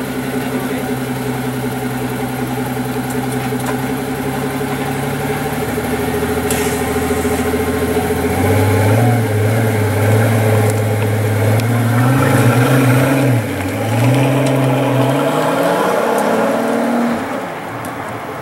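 Pagani Huayra's twin-turbo V12 idling steadily, then pulling away: about halfway the note gets louder and climbs, dips briefly as it shifts, climbs again, and falls away near the end as the car leaves.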